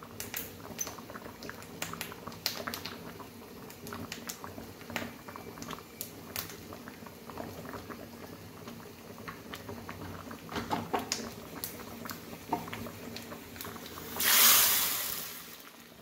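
Thick lentil-and-vegetable curry boiling in a steel pot, its bubbles popping in many small irregular plops. Near the end a loud rushing noise swells and fades over about a second and a half.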